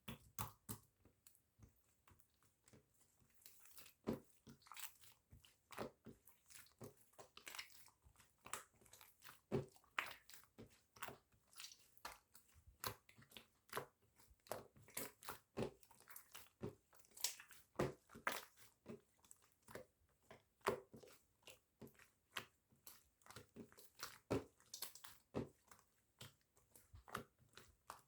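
Yellow and lime-green slime being pressed and worked by hand, making irregular crisp clicks and pops, several a second.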